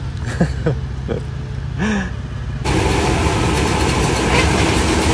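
Tractor engine running with a low steady hum, with a few short sliding squeaks. About two and a half seconds in, a louder, denser sound takes over: a combine harvester working in a ripe rice field.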